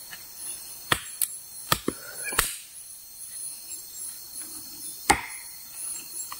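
Several sharp knocks at uneven intervals, with a pause of over two seconds before the last one, over the steady high-pitched chirping of forest insects.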